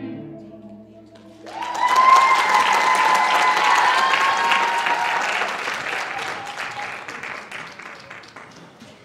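The last notes of soft piano music die away, then about a second and a half in an audience breaks into applause with high cheering that slowly dies down.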